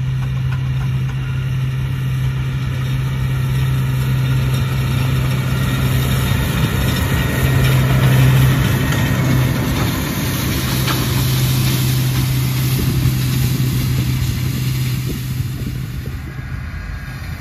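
New Holland T7.210 tractor's six-cylinder diesel engine running steadily under load while it drives a Kverneland FRD280 flail topper, whose spinning rotor adds a hiss as it cuts grass. The steady deep drone grows louder as the tractor passes close, about eight seconds in, then fades.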